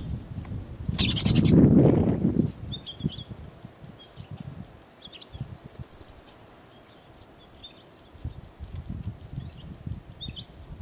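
Arctic ground squirrel giving a short, rapid chattering call about a second in, over a low rumble. A few faint short chirps follow.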